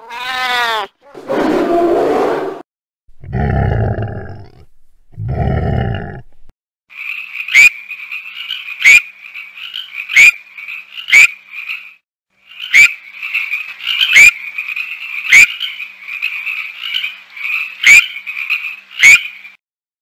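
Gray treefrog trilling: a steady, musical pulsed trill in two long bouts with a short gap between them, overlaid by sharp clicks about once a second. Before the trill come a cat-like meow, a rough cry and two short low rough calls.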